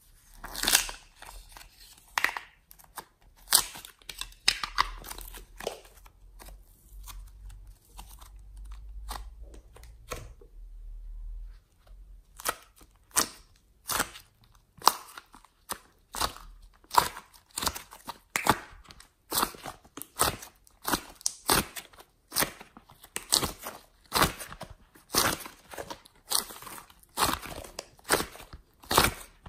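Close-up handling of plastic slime containers and soft modelling clay: crisp clicks and crinkles as a plastic lid is worked open, then a long run of sharp crackly clicks and squishes, about two a second, as clay is pressed out of a plastic heart-shaped mould and kneaded.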